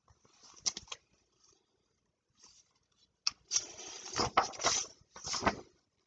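Pages of a large picture book being handled and turned: a few light clicks, then a sharp snap and paper rustling about three and a half seconds in.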